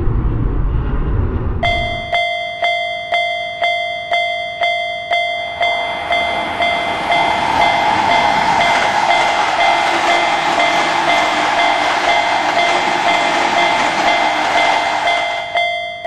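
A low rumble of a passing jet airplane, then a Japanese railroad crossing's warning bell starts ringing, about two strikes a second. From about six seconds in, a passing train's steady rushing noise joins the bell, which keeps ringing until both stop together at the end.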